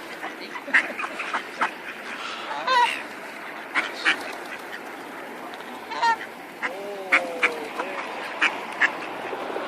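Waterfowl honking, two short calls about three and six seconds in, with a few lower gliding calls near the end. A scatter of short sharp clicks runs through it.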